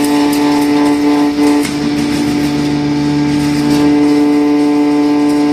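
Soybean grinding mill running with a loud, steady pitched hum while the last soybeans feed down from its hopper, with light ticking of beans during the first couple of seconds. A lower tone joins the hum a little over a second in.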